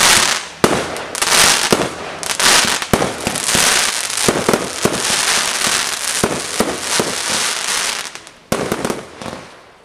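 Sovereign 'Enchantress' multi-shot firework cake firing a rapid barrage. Each shot gives a sharp bang followed by a hiss of crackling stars. The shots thin out near the end, with one last bang before the sound dies away.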